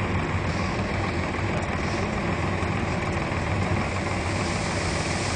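Punni groundnut combine harvester running steadily: its engine and threshing machinery make a constant low hum with an even noise over it.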